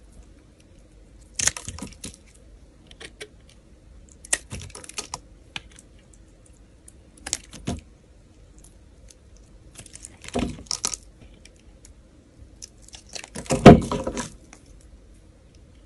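Snap-off utility knife blade cutting into a bar of soap: a series of short, crisp crunching scrapes, about six cuts with pauses between them. The loudest comes near the end as chunks of soap break away.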